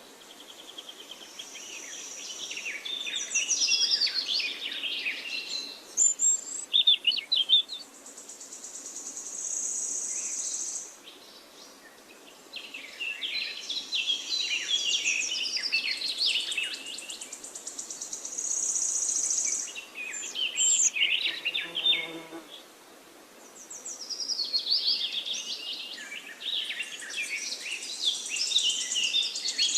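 Songbirds singing in repeated phrases of rapid, jumbled chirping and warbling, alternating with long, high, buzzy trills, with brief pauses between phrases.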